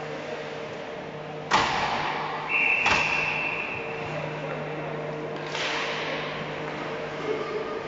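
Ice hockey play in an arena: a loud crack echoing through the rink about a second and a half in, then a referee's whistle blown once for about a second and a half, with another sharp knock under it. Further clatter of play follows, over the rink's steady low machinery hum.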